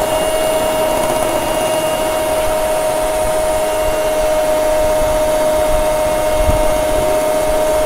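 Electric hand mixer running steadily, its motor giving a constant whine as the beaters whip cream.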